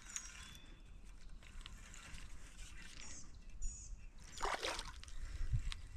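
Faint outdoor ambience with high bird chirps, and a short splash about four and a half seconds in as a hooked crappie breaks the surface beside the boat.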